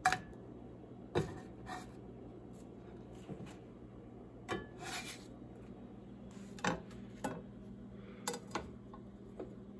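Cooking utensils clinking and knocking against a nonstick frying pan and a ceramic plate as a pancake is lifted out and plated: about ten sharp clinks, some ringing briefly, over a low steady hum.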